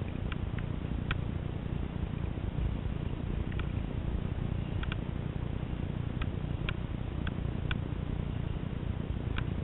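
Wind buffeting the camera microphone as a steady low rumble, with about a dozen light, sharp clicks scattered irregularly through it.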